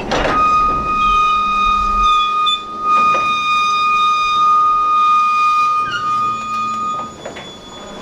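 Railroad wheels squealing against the rail: one steady, high-pitched squeal held at the same pitch for about seven seconds, breaking off near the end.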